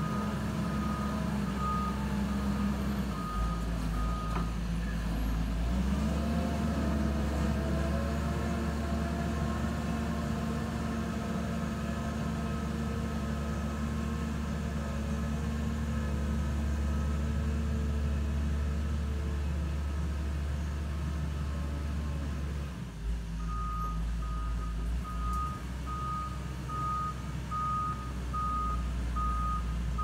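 Hydraulic excavator's diesel engine running under digging load, its note rising a few seconds in and easing near the end. A repeated high alarm beep sounds for the first few seconds and again through the last several seconds.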